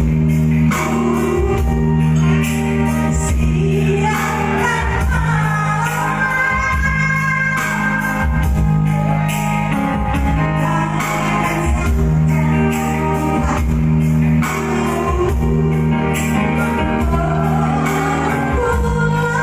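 A woman singing through a microphone and PA over a live band with a keyboard, her voice high and shrill on held, wavering notes.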